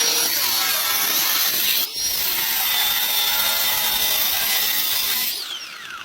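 A handheld power tool running at high speed, with a brief dip about two seconds in. Near the end it is switched off and its whine falls in pitch as it spins down.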